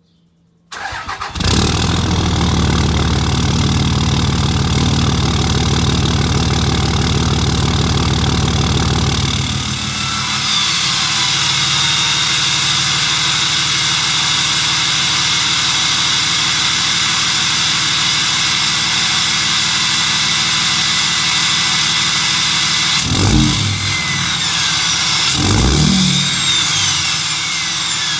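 A 5.9 Cummins inline-six diesel in a 2006 Dodge Ram 2500 cranks briefly and catches about a second in, then idles through a 4-inch straight-pipe exhaust with a deep rumble. This is a cold start with the exhaust brake on. At about ten seconds the rumble drops away and a loud jet-like hiss and turbo whistle take over, with two brief low surges near the end.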